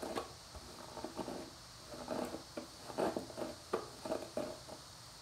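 Hairbrush dragged through wet, tangled hair in a series of irregular rustling strokes, coming thickest in the second half.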